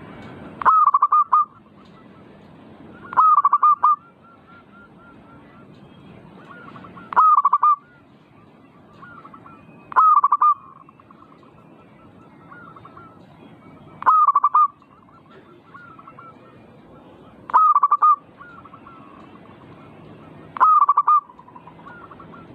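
Zebra dove (perkutut) cooing: seven loud, short phrases of quick rolling notes, a few seconds apart, with fainter cooing notes between them.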